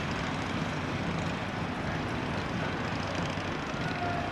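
Steady outdoor street and traffic noise: a continuous, even rush with a faint low hum and no single sound standing out.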